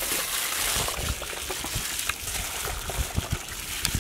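Raw chicken pieces being mixed by gloved hands in marinade in a large metal pot: wet squelching with irregular short slaps and clicks.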